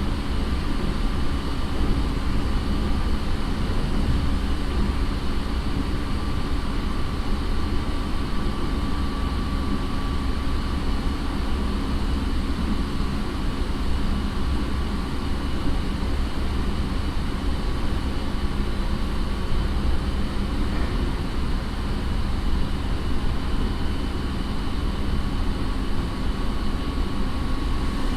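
Running noise inside a JR 209 series electric multiple unit's motor car: low, steady rolling rumble with a faint, unchanging whine from the MT68 traction motors, as the train runs at a steady speed.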